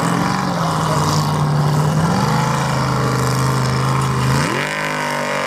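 Formula Offroad buggy's engine running at high revs as it climbs a steep dirt hill. The engine note holds steady, sags slightly about two seconds in, then rises sharply near the end as it revs up.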